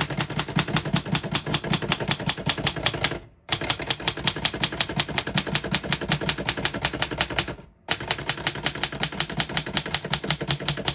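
1924 Remington Portable typewriter keys struck in fast, even runs, about ten keystrokes a second, in three runs broken by two brief pauses.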